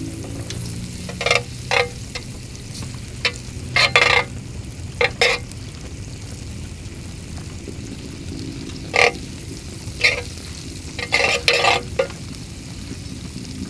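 A metal spoon scraping across a ridged grill pan in about ten short strokes, spreading melting fat that sizzles steadily on the hot pan.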